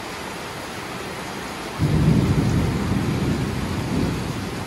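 Heavy rain falling steadily. About two seconds in, a loud, low rumble of thunder breaks in suddenly and fades away over the next two or three seconds.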